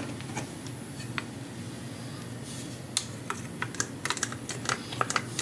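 Light, irregular clicking and tapping of a utensil and a small glass bowl against a cooker pot as honey is emptied into it. The clicks start about three seconds in and come more often near the end.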